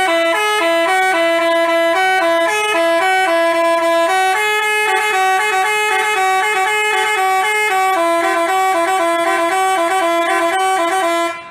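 Telolet basuri musical bus horn playing a fast tune: clear horn notes stepping quickly from pitch to pitch, two notes sounding together about an octave apart. The tune runs without a break and cuts off near the end.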